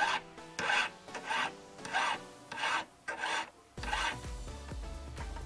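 Hand file scraping back and forth across a silver ring in steady strokes, about one every two-thirds of a second, smoothing the soldered ring.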